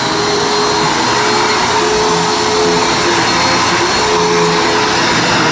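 Hoover WindTunnel bagged upright vacuum cleaner running steadily at full power, a steady motor whine over the rush of air.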